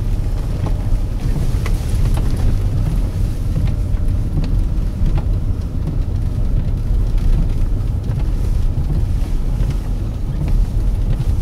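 Steady low rumble of a car driving on a snowy highway, heard from inside the cabin, with a few faint ticks.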